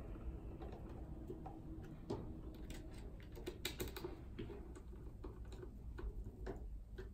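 Screwdriver turning the retaining screws of an input module in a Yokogawa DL350 ScopeCorder's top slot: faint, irregular small clicks and ticks.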